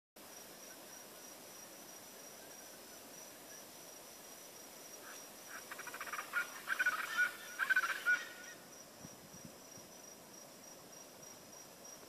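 Chachalacas calling in a rapid, repeated chorus for about three seconds midway, over a steady high insect trill.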